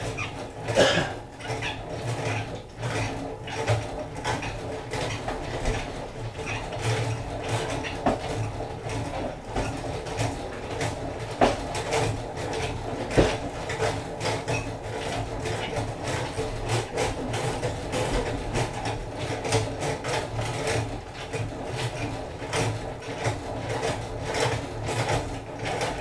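Hand-cranked honey extractor being turned at a steady, easy speed, its crank gears clicking and rattling continuously, with a few sharper knocks.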